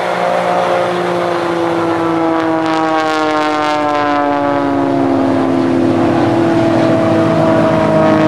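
Christen Eagle aerobatic biplane's piston engine and propeller droning steadily as it flies past low, the pitch sliding slowly down as it goes by.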